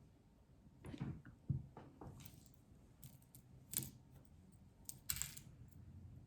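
Costume jewelry being handled and sorted: faint, scattered light clicks and clinks of metal and beads, with a brief rustle about five seconds in.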